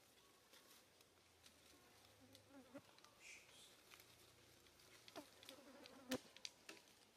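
Quiet forest-floor ambience: insects buzzing faintly, with scattered light rustles and ticks in dry leaves. One sharper tick comes about six seconds in.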